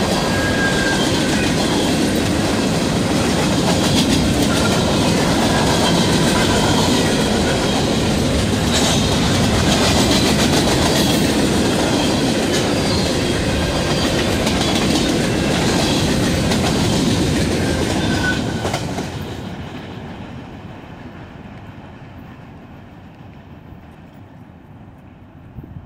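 Freight train cars rolling past at speed: a steady, loud noise of steel wheels on the rails with a few short, faint wheel squeals. About eighteen seconds in, the end of the train goes by and the sound fades away.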